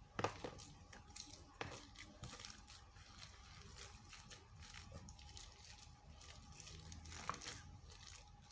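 Faint crinkling and crackling of foam-bead slime being handled, with a few sharper clicks, the first just after the start and another about a second and a half in.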